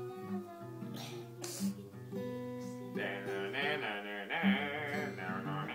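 Acoustic guitar being played, held notes and strummed chords. From about halfway through, a voice sings along over it.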